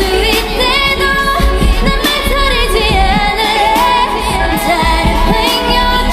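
Korean pop song: a female voice sings a gliding melodic line over a backing track with a steady beat.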